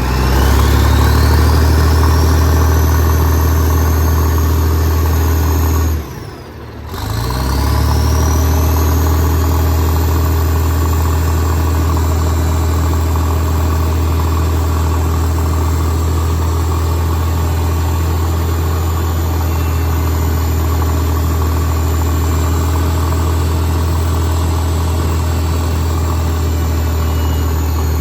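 Cat 977H crawler loader's diesel engine being throttled up and running hard, with a high whine that climbs as the revs rise. About six seconds in the sound drops off briefly, then the engine and whine build up again and hold steady until the whine falls away near the end.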